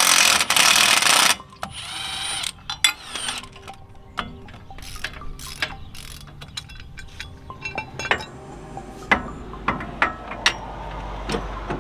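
Cordless Milwaukee M12 Fuel power tool running on a front track bar bolt for about a second, with a shorter run a moment later. Then a socket ratchet clicking in short spells, with metal clinks of tools on the axle. A low rumble comes up near the end.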